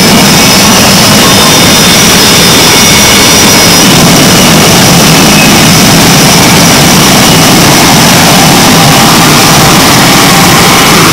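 F/A-18 jet engines running loud and steady on a carrier flight deck: a dense rush of noise with thin, high whining tones above it.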